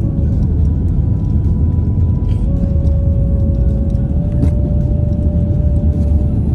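Steady low rumble of a car on the move, with music playing over it in long held notes.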